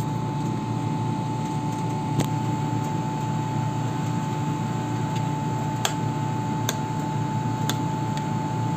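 Steady low hum of a running fan with a thin, even whine over it, and a few sharp clicks as a metal spoon works in a ceramic bowl of banana fritter batter.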